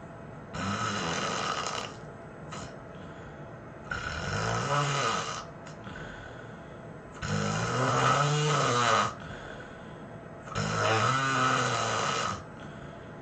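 A person snoring heavily: four long snores about three seconds apart, each lasting one to two seconds and rising and falling in pitch.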